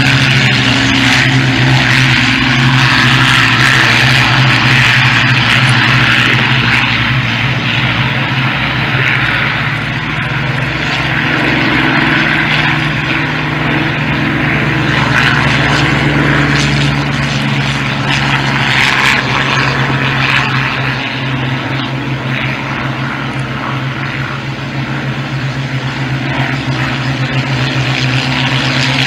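Spitfires' V12 piston engines at take-off power as the fighters run across the grass and lift off: a steady, loud, deep drone that eases off a little twice and builds again near the end.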